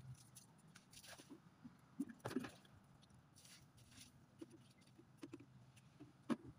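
Faint, scattered splashes and knocks of water being poured and scooped with a plastic basin, with a short splash about two seconds in and a sharp knock near the end.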